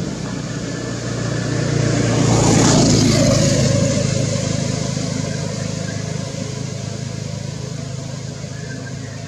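A motor vehicle passing by. It grows louder to a peak about three seconds in, then fades with a falling pitch, over a steady low engine hum.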